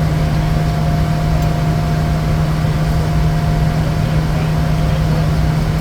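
Steady in-flight drone inside a Bombardier Challenger 350 business jet, its Honeywell HTF7350 turbofans and the airflow making a constant loud noise with a steady low hum underneath.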